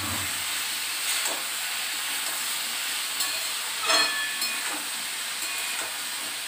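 Mixed vegetable curry sizzling in a pan on the stove: a steady frying hiss, with a short utensil clatter about four seconds in.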